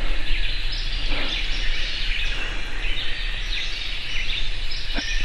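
Woodland chorus of many songbirds chirping and trilling at once, with a steady low hum underneath.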